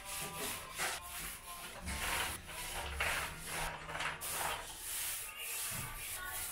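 Paint being applied to a wall in repeated rubbing strokes, about two a second.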